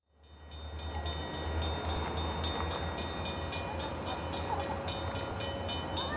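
Distant diesel locomotive of a Kansas City Southern grain train approaching, a steady low engine rumble fading in over the first second. A fast, regular high-pitched ticking, about four a second, runs over it, with a few faint bird chirps.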